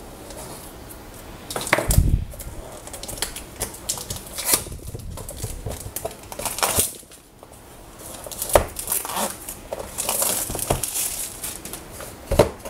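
The cardboard box of a Google Home Mini being opened by hand: irregular scraping, rustling and sharp taps of card and packaging, the loudest knock about two seconds in.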